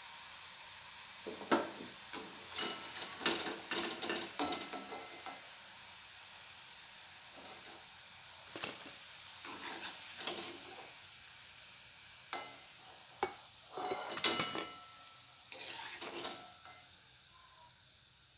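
Medu vadas sizzling in hot oil in a kadhai, the sizzle slowly dying down with the gas switched off. A perforated steel slotted spoon clinks and scrapes against the pan in scattered bursts as the vadas are lifted out, loudest about fourteen seconds in.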